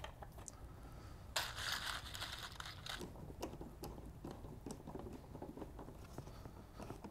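Faint sounds of screws being set by hand into wooden panels and turned with a Phillips screwdriver. A rasping scrape lasts about a second and a half, starting a little over a second in, followed by light scattered clicks and knocks.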